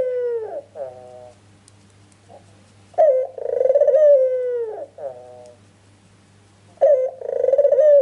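White ringneck dove (puter) cooing in long repeated phrases: each opens sharply, holds a steady tone, then falls away, followed by a short stuttering note. One phrase ends at the start, a full one comes about three seconds in, and another begins near the end.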